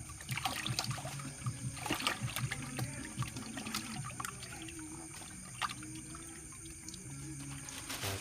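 Water splashing and trickling, with many small irregular splashes and knocks that are thickest in the first half and thin out later.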